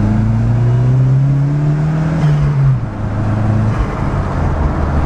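Turbocharged Volvo engine accelerating hard, its pitch climbing for about two seconds, then falling sharply and running steadier at a lower pitch.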